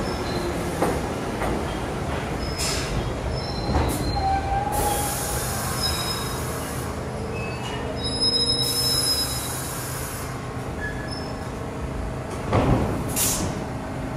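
New York City Subway train of R62-family cars running through the station: a steady rumble with short, high wheel squeals and several sharp knocks as the wheels cross rail joints, the loudest knocks near the end.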